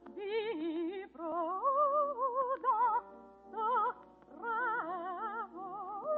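Operatic soprano singing with a wide vibrato, over a steady accompaniment, in a 1940 radio broadcast recording. The voice sings several short phrases with brief breaks between them, then swells onto a held note near the end.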